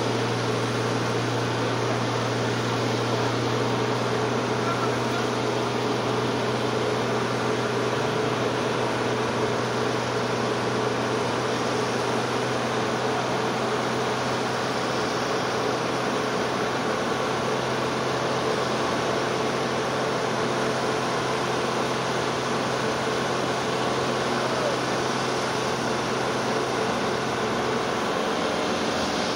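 A vehicle engine idling with a steady low hum under a constant rushing noise; the hum drops away near the end.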